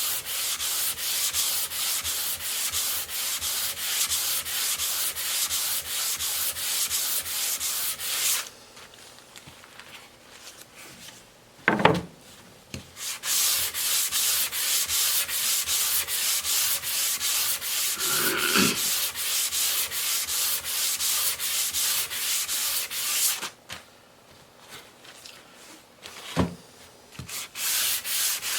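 Rapid back-and-forth sanding strokes on wood, several a second. The sanding stops twice for a few seconds, and a single knock sounds in each pause.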